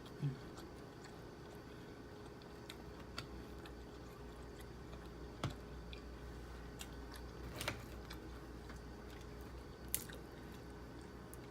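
Quiet, close chewing of pork lumpia (Filipino egg rolls), with a few scattered small clicks and smacks of the mouth spread through it.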